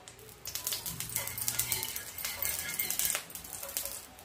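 Oil crackling and sizzling as it hits a hot iron dosa tawa, a dense, uneven run of small pops starting about half a second in.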